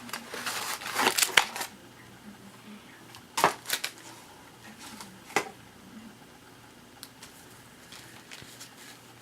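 Hands handling a baseball card box's packaging and cards: a short stretch of crinkling and rustling, then a quieter stretch broken by a few sharp taps and clicks.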